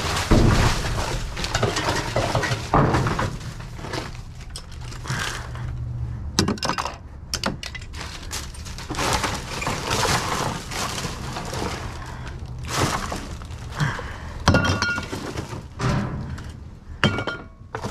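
Hard junk being rummaged through and shifted about: a busy, irregular clatter of knocks, clinks and rattles as metal and plastic pieces knock together, with a brief ringing clink near the end.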